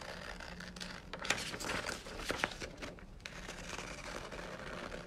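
Scissors cutting paper: irregular short snips, with the sheet rustling as it is turned through the cut.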